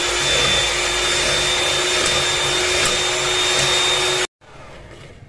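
Electric hand mixer (Bajaj Majesty HM01) running at a steady speed, its beaters whipping liquid cream in a steel bowl. The motor's whine is even and cuts off abruptly about four seconds in.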